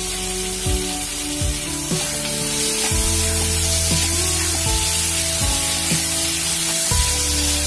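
Background music with held notes over a steady sizzle of chopped tomatoes and onions frying in oil in a pan.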